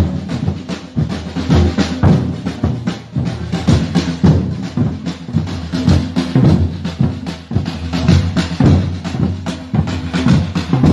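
Batucada drum group playing a dense, driving rhythm: deep bass-drum hits under rapid sharper drum and wood-block strokes, many strokes a second.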